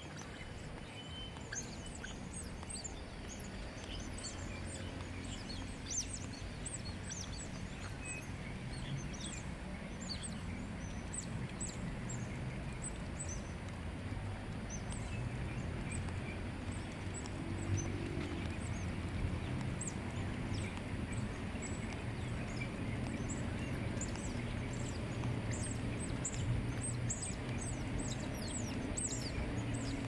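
Many short, high-pitched bird chirps from the dawn chorus, scattered throughout over a steady low hum.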